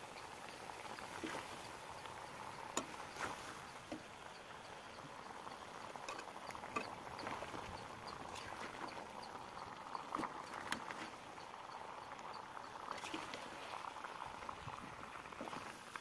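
A metal spoon mixing raw chicken pieces, chopped tomato and spice powder in a metal pan: a steady soft hiss with a few sharp clinks of the spoon against the pan, about two seconds in and again around ten seconds in.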